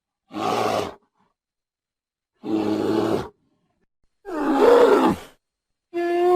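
Wild animal calls: four short, gruff grunts or growls separated by silence, the last a steadier, more pitched call.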